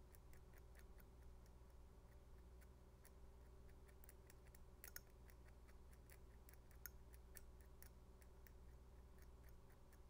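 Near silence: room tone with a faint steady electrical hum and many faint, irregular ticks.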